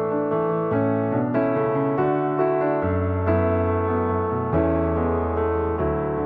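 Background piano music, gentle, with notes and chords changing about every half second.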